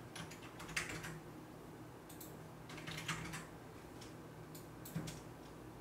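Typing on a computer keyboard: faint key clicks in a few short, irregular clusters, over a low steady hum.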